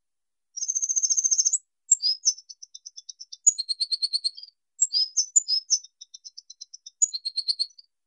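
Oriole finch (Linurgus olivaceus) singing a high-pitched song. It opens with a fast trill lasting about a second, followed by quick runs of rapid high notes broken by sharper single notes, and stops just before the end.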